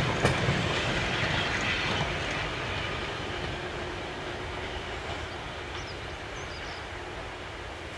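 A steam-hauled goods train of short wagons and a brake van rolling away along the track, the noise of its wheels on the rails fading steadily as it recedes.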